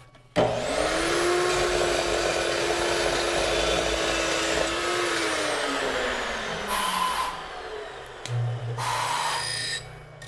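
Tormach PCNC 1100 CNC mill during a tool change. The spindle runs with a steady hum and hiss, then winds down about five seconds in. Two short blasts of air follow as the automatic tool changer swaps the tool.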